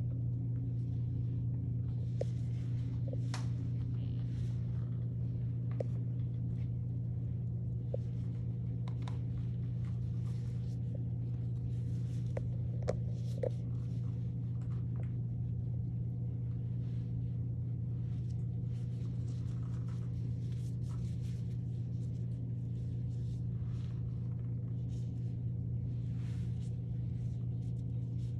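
Steady low room hum, with faint scattered ticks and rustles from gloved hands working relaxer through the hair.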